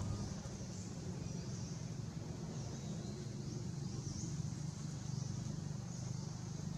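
Steady low hum of a running motor, with faint high chirps over it.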